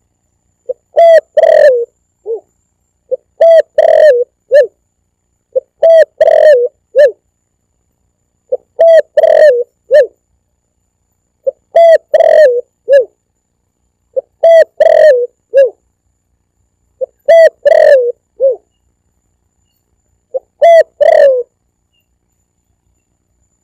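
Recorded spotted dove song used as a hunting lure call. A short phrase of several low coos repeats about every three seconds, eight times, with dead silence between the phrases.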